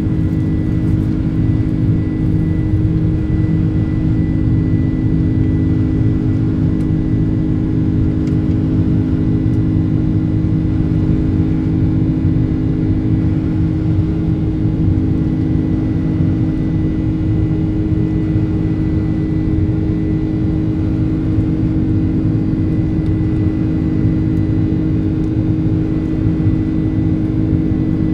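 GE CF6 turbofan engines of a Boeing 767-300 heard from inside the cabin. The engines give a steady, unchanging drone with a thin high whine over it.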